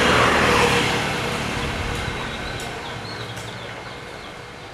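A road vehicle driving past, loudest in the first second and then fading away steadily.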